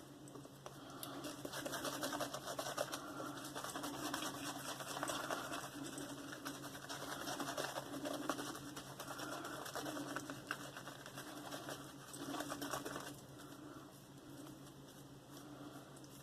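Synthetic shaving brush (Timberwolf 22 mm synthetic knot) working a thick, pasty shaving-soap lather, with water just added to build it up: a steady wet, scratchy swishing that swells and eases with the brush strokes.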